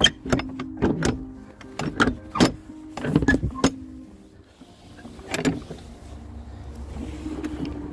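Climbing over a wooden stile: a run of sharp wooden knocks and thumps as boots and a wooden staff strike its steps and rails, about eight in the first four seconds and one more about five and a half seconds in.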